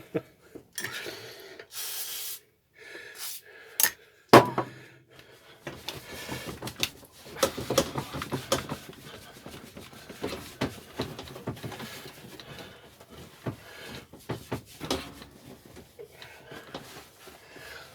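Handling and rubbing a lawnmower deck: scraping, rubbing and small clattering knocks, with one sharp knock about four seconds in.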